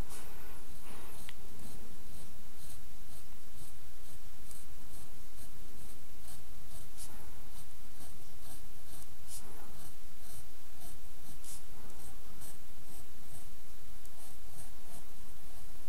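Pencil scratching across drawing paper in short strokes, a stroke or two each second, joining plotted points into a curve, over a steady low hum.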